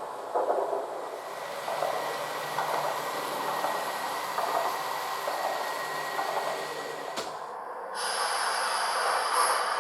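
Sound of a 1938 tube stock train running, with a steady whine over the running noise. About seven seconds in it cuts off with a click. About a second later a louder, high wheel-flange squeal sets in, with several steady tones.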